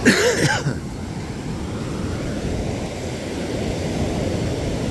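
Steady wind rumbling on the microphone over the low wash of small surf, opening with a brief loud burst.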